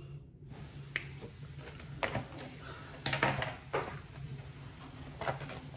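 A few light knocks and clicks of handling as a small handheld whiteboard is lowered and put down, over a low steady hum.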